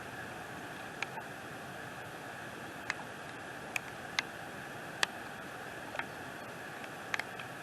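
Steady rain hiss with scattered single raindrops tapping close by, about a dozen at irregular intervals.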